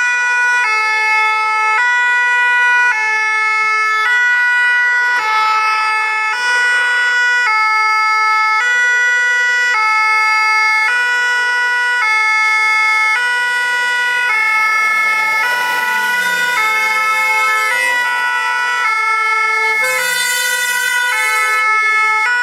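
Two-tone "pin-pon" sirens of vintage fire engines, alternating between a high and a low note about every 0.8 seconds. At times two sirens sound together out of step.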